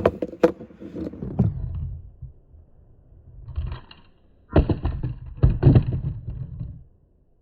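Toy monster trucks rolling, knocking and clattering as they run and tumble. There is a short burst at the start, then a louder run of knocks and rolling from about four and a half seconds in that stops about two and a half seconds later.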